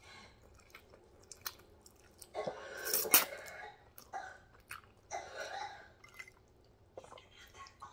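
A person chewing a mouthful of spaghetti in meat sauce close to the microphone: wet mouth and lip-smacking noises with small clicks, and louder bursts about two and a half seconds in and again just after five seconds.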